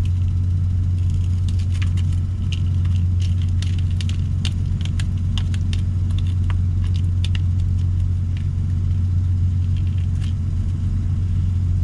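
Idling semi-truck diesel engine, a steady low hum, with scattered light clicks and crackles from handling frozen-solid green onions.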